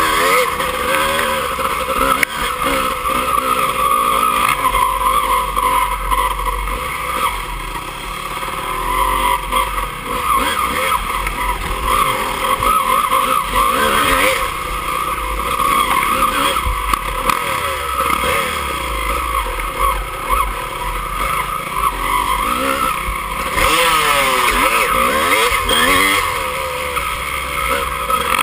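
Dirt bike engine heard from on board, revving up and down over and over as the rider accelerates and backs off along the trail.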